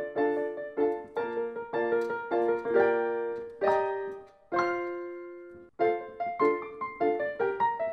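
Background music on solo piano: steady repeated chords that slow into two long held chords about four seconds in, then pick up the rhythm again.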